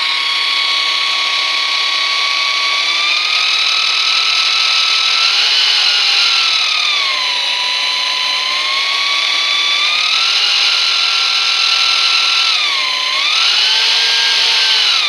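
Electric drill running in drilling mode at medium speed, with a high whistling, grinding whine over the motor. Its pitch dips and recovers about halfway through and again near the end. The owner can't tell whether it is a fault or normal running.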